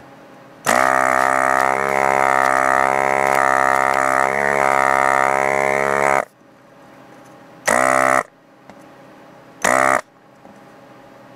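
Hakko FR-300 desoldering gun's built-in vacuum pump buzzing steadily for about five and a half seconds, then two short bursts about two seconds apart. The vacuum is being triggered before the solder on the joint has melted.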